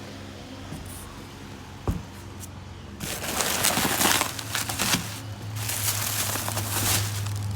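Crinkling and rustling, like material being crumpled and handled, starting about three seconds in after a single sharp click. A steady low hum joins it in the second half.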